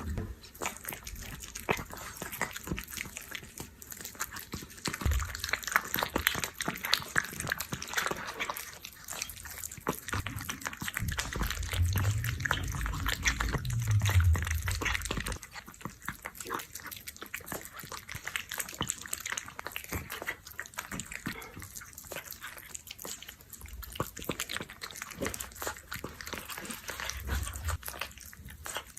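Cat eating wet canned food close to the microphone: fast, wet chewing, licking and smacking clicks, with a few low bumps along the way.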